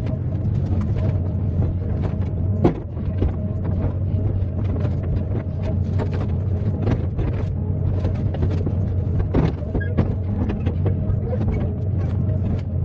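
Excavator's diesel engine running steadily, with scattered short knocks and clanks over it.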